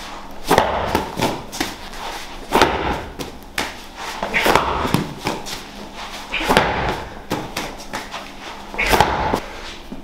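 Gym workout thuds and slams, a medicine ball hitting the rubber floor mats, in an irregular run of one impact every half second to a second.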